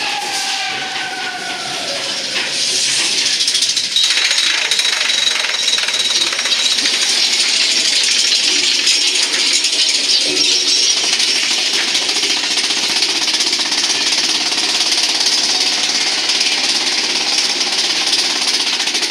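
Arrow mine-train roller coaster clattering along its track, a fast continuous rattle that grows louder about four seconds in. A falling tone sounds in the first two seconds.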